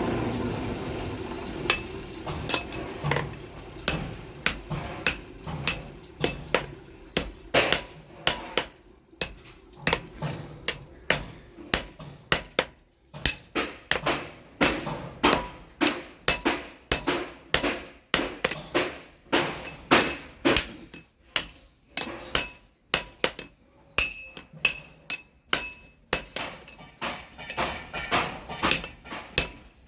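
Blacksmith's hammer striking steel on an anvil in a steady run of blows, about two a second, each with a short metallic ring, as the machete blade is forged.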